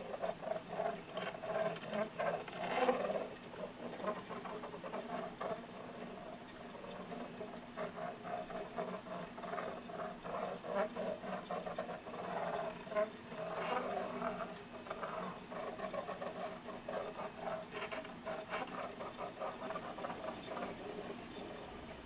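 Homemade pen-plotting drawing machine running. Its drive makes a wavering whine while the jointed arms move the pen over the paper, with fast irregular ticking throughout.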